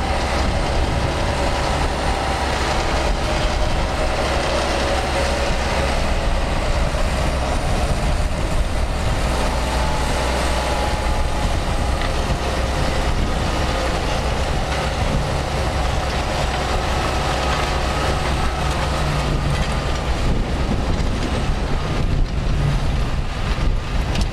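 An engine running steadily with a constant low rumble.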